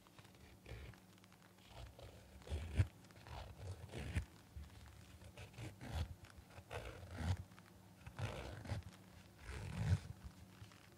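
A KN95 face mask being handled close to the microphone: irregular crinkles and scrapes of its fabric, one or two a second.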